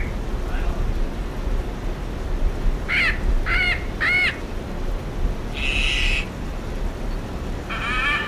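Macaw calling: three short rising-and-falling squawks about three seconds in, then a longer harsh screech about six seconds in, and another starting near the end, over a steady low background noise.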